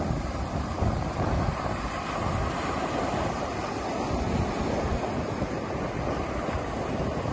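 Sea waves breaking and washing over shore rocks, a steady surf wash, with wind buffeting the microphone in low gusts.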